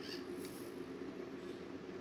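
Small electric motor and gear drivetrain of a 1/24-scale RC rock crawler running steadily under load as it climbs a rock. A few brief high squeaks come in the first half second.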